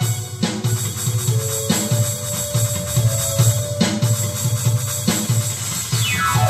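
Instrumental passage of a backing track with drums, tambourine-like percussion and a steady bass beat, and a falling sweep near the end.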